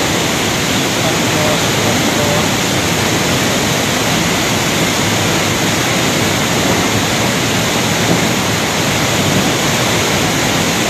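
River in flood rushing past as a loud, steady roar of turbulent muddy water.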